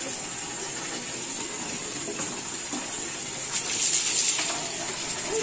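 Water running steadily from a tap into a plastic bucket. About three and a half seconds in, a mug of water is poured over a child and splashes down, briefly louder.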